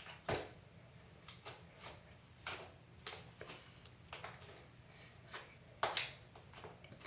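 Soft scattered clicks and squelches of clear-glue borax slime being poked and stretched by hand, about a dozen short sounds, the loudest a moment after the start and just before six seconds in.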